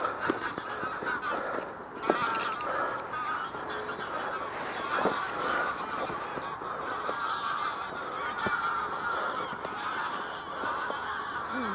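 A flock of greylag geese honking, many birds calling over one another in a continuous chorus, with a few faint knocks.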